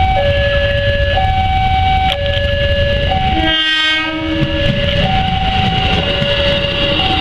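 Ex-JR 205 series electric commuter train passing close by in heavy rain, with a steady rumble, sounding its horn once for about a second midway. Behind it, the level-crossing alarm rings in two tones alternating about once a second.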